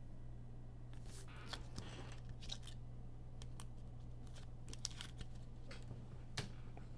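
Trading cards being handled and flipped through: scattered soft clicks and brief scrapes of card stock, over a steady low electrical hum.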